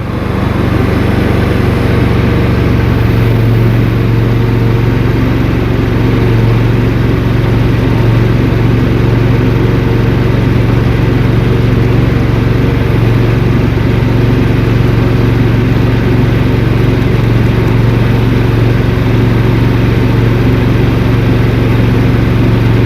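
Gasoline engine of a JoyT5 JT5SSTM3 walk-behind skid steer, a Briggs & Stratton Vanguard, running at a steady throttle as the machine plows snow uphill with its blade. The engine holds an even note, unbothered by the uphill load.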